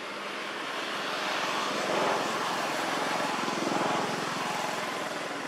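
A motor vehicle passing by, its engine and road noise swelling for a few seconds and easing off near the end.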